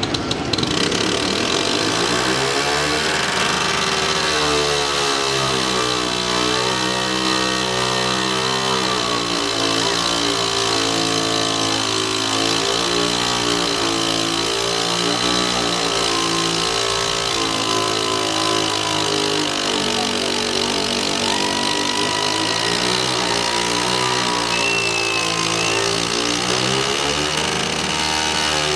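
Motor scooter engine revving hard during a spinning stunt, climbing to high revs over the first few seconds and then held there, its pitch wavering up and down.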